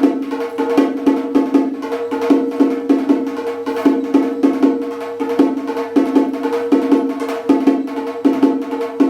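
Parai frame drum beaten with sticks in a fast, steady rhythm, several strokes a second, each stroke ringing at the same drum pitch.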